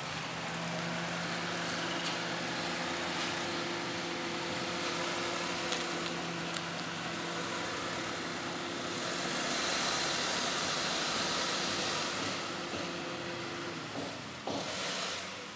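Honda CR-V's engine running at low speed as the car reverses into a driveway, a steady hum with a stretch of louder hiss in the middle. The hum dies away near the end as the car comes to rest.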